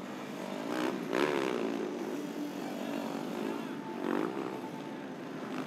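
Motocross motorcycle engines revving on track, with the pitch climbing and falling as the throttle opens and closes; two bikes swell louder as they pass, about a second in and again about four seconds in.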